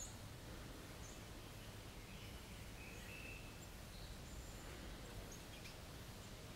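Faint, scattered short chirps and a brief whistle of small songbirds over a low, steady background rumble.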